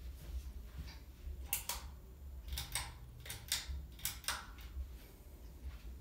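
Pull-chain switches of a Harbor Breeze Ocracoke ceiling fan clicking, about four pulls in a row, each a quick double click, as the light is switched off and the fan is stepped through its speed settings. A low steady hum runs underneath.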